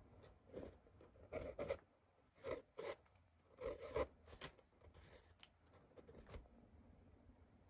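A pen writing on lined paper: faint, short strokes in irregular bunches, the strongest about one and a half and four seconds in, with quiet pauses between.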